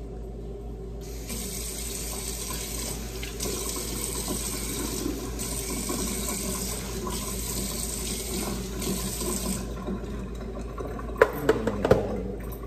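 Kitchen tap running steadily for about eight seconds as water is drawn, then shuts off. Near the end come a few sharp clicks and crinkles as the aluminium foil pan is handled.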